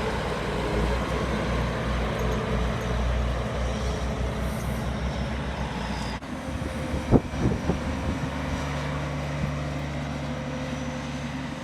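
A vehicle engine running steadily. The sound changes abruptly about six seconds in, and a few sharp knocks follow a second later; these are the loudest moments.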